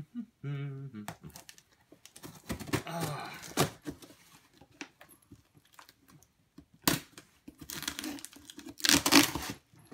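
Knife blade slicing and scraping through packing tape on a cardboard box, with tape and cardboard tearing; the loudest, longest rip comes near the end.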